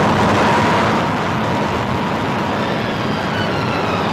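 Steady rushing roar of Niagara's falling water and the collapsing rock face, on an old newsreel soundtrack, with a faint steady whine underneath.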